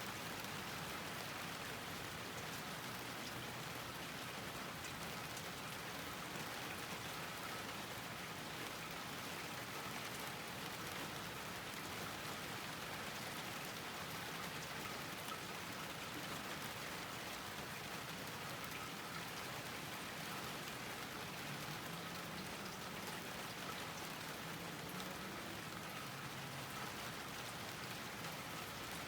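Steady rain falling on a garden, a continuous even patter of drops.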